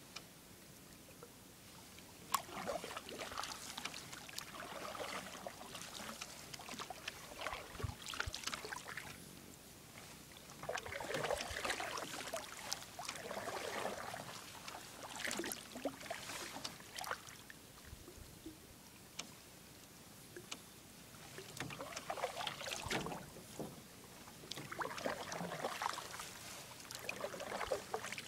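Canoe paddles dipping and pulling through calm lake water: spells of swishing and dripping strokes with quieter gaps between them, and a few sharp clicks.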